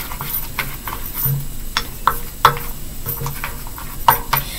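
Utensil stirring and scraping a thick conditioner-and-cornstarch dough in a stainless steel bowl, with irregular clicks against the metal two or three times a second.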